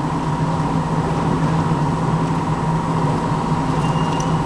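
Steady mechanical hum: a low drone with a fainter, higher steady tone above it, unchanging throughout.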